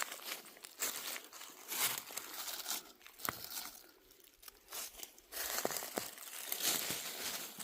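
Dry leaves and forest litter rustling and crunching in irregular bursts, with a sharp click about three seconds in.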